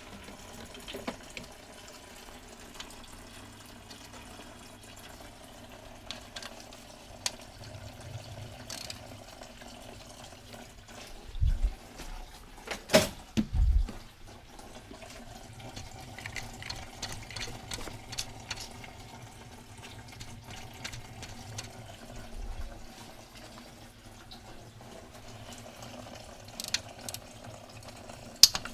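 Liquid running steadily, with three loud knocks about halfway through.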